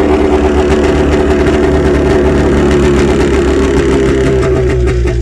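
1993 Arctic Cat EXT 550 snowmobile's liquid-cooled twin-carb two-stroke engine idling steadily, freshly started cold without choke and still warming up.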